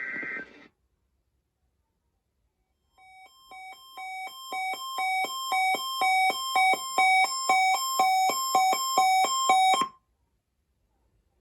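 Weather radio receiver's alert alarm: electronic beeps alternating between a low and a high pitch, about two and a half a second, growing steadily louder from about three seconds in and cutting off suddenly near ten seconds. It signals that the receiver has been activated by the NOAA Weather Radio weekly test. At the very start a brief burst of SAME data tones ends.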